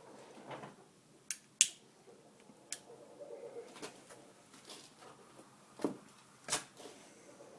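Chickens clucking softly and low, with a few sharp clicks scattered through.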